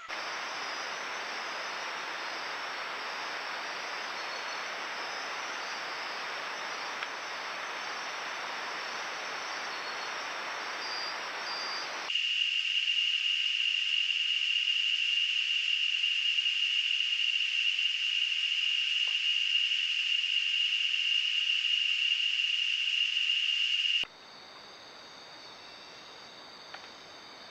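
Rainforest ambience picked up by trail cameras. First a steady, even hiss with faint high insect trills. About halfway through it gives way to a louder, steady, high-pitched insect drone, which cuts off suddenly near the end. Quieter night insects chirp after that, with a few faint ticks.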